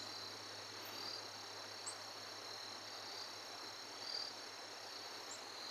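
Faint outdoor background with insects trilling, a steady high-pitched drone, over a faint low hum.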